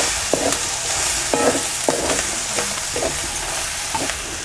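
Tomato-and-spice masala sizzling in hot oil in a kadhai while it is stirred with a wooden spatula, which scrapes and knocks against the pan about once or twice a second over the steady frying hiss.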